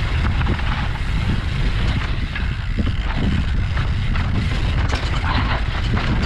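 Wind buffeting the microphone and tyres rolling over a rocky dirt trail on a YT Tues downhill mountain bike descending at speed, with scattered knocks and rattles from the bike over rough ground.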